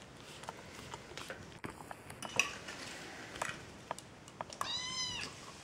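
Kitten eating from a dish: scattered small clicks and clinks, then near the end one drawn-out high mew while it eats.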